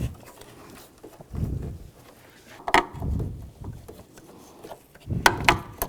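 Handling noise of hands and a plastic trim tool working a hood-latch wire and its connector: a few low bumps and scattered sharp clicks, with a cluster of clicks near the end.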